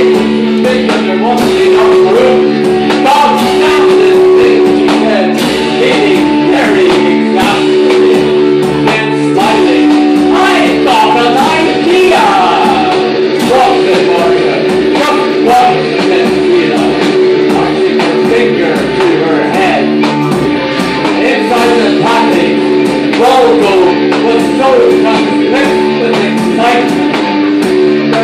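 Live rock band playing a loud instrumental passage: electric guitars hold droning sustained notes over a steady drum beat, with sliding melodic lines on top.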